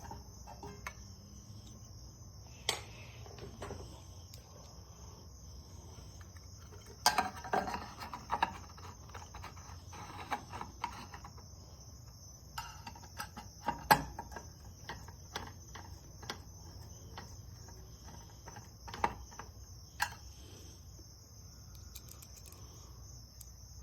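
Crickets chirping steadily in a high pitch, with scattered small metallic clicks and taps as the tiny screws of a ceiling fan light-kit plate are handled and fitted. The clicks are loudest in a busy spell about seven to eleven seconds in and again at about fourteen and twenty seconds.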